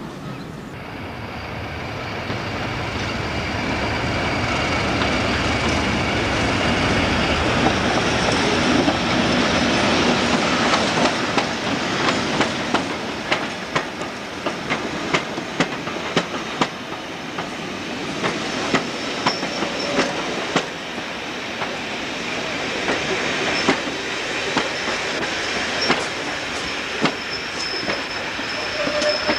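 British Rail Class 31 diesel locomotive, English Electric engine, running louder and louder as it approaches and passes at the head of a passenger train. Then the coach wheels make a long run of sharp, irregular clicks over the rail joints and pointwork, with a faint high wheel squeal now and then in the second half.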